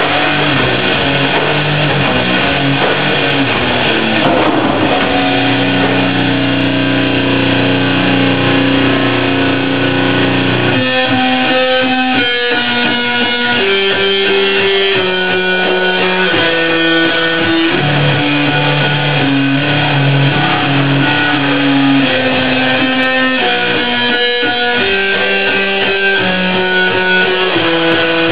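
Live band playing loud electric-guitar rock with drums. Long held chords give way, about a third of the way in, to shorter changing notes.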